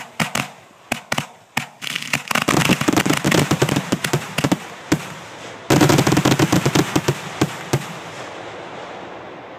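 Fireworks finale barrage fired from the ground: a rapid, dense run of bangs and crackle from many shots going off almost at once. A sudden louder volley comes about halfway through, and the sound dies away near the end.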